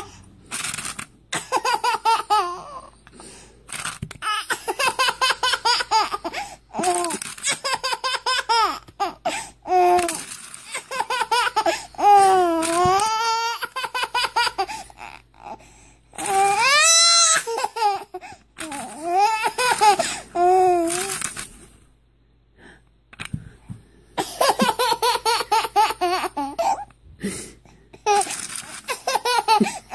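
Baby laughing hard in long bouts of rapid belly laughs, with a couple of high-pitched squealing laughs near the middle and a short pause about two-thirds of the way through.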